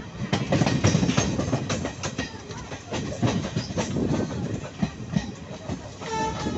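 DEMU (diesel-electric multiple unit) train running at speed, heard from inside the carriage: wheels clacking over the rail joints under a steady rushing noise. A short pitched tone sounds briefly near the end.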